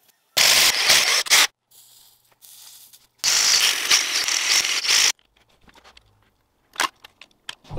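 A power drill boring into a clear acrylic plate held in a vise: two harsh, scratchy bursts, one of about a second and a longer one of about two seconds, with a few small clicks near the end.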